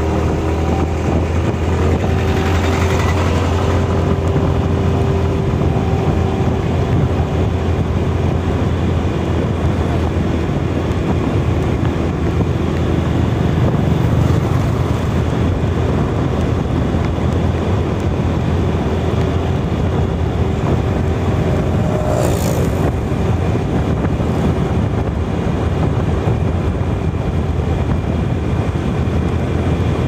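TVS scooter's small engine running steadily at cruising speed, mixed with wind and road noise; one brief hiss sweeps through partway along.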